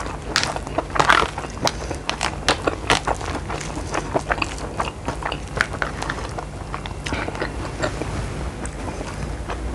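A person chewing and biting food close to the microphone: many short wet clicks and crunches, thickest in the first three seconds and sparser after, over a steady low hum.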